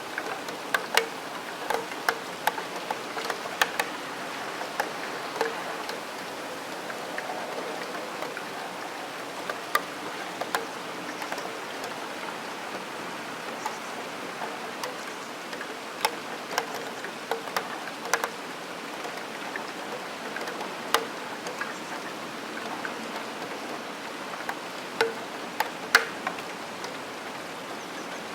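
Raindrops hitting a steel window sill, giving irregular sharp metallic ticks, some with a short ring, over a steady hiss of rain.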